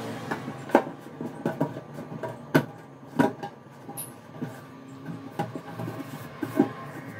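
Sink drain strainer being twisted and pressed into the outlet of a stainless steel kitchen sink: scattered clicks and knocks of metal on metal, a few of them sharp.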